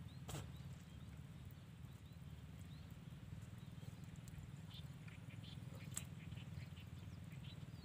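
Faint pond-side ambience: a steady low rumble with scattered faint short chirps from small animals, and a sharp click at the start and another about six seconds in.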